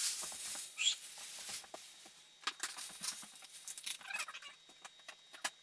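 Scattered light knocks and rustling, with a short high bird chirp about a second in and soft hen-like clucking near the end.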